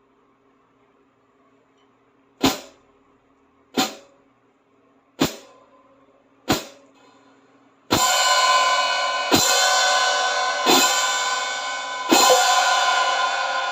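Merielle B-10 Series 14-inch dark hi-hat cymbals struck four times with short, quickly decaying notes about 1.3 s apart. They are then struck louder about every 1.4 s, each hit ringing on into the next in a continuous bright wash.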